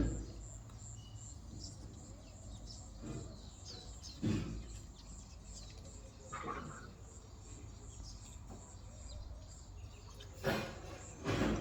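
Outdoor background noise with a faint steady high insect buzz and a short chirp past the middle, broken by a few brief soft bumps or rustles.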